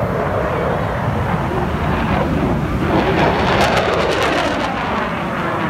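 Air-show aircraft passing low overhead, a loud continuous roar whose pitch falls as it goes by.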